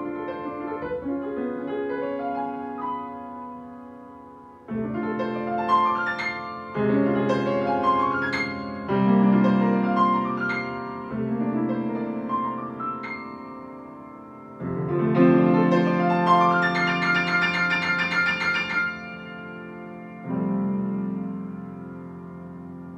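Steinway grand piano played solo in several phrases, with a run of rapid high notes about three-quarters of the way through. The piece ends on a held chord that rings and slowly fades.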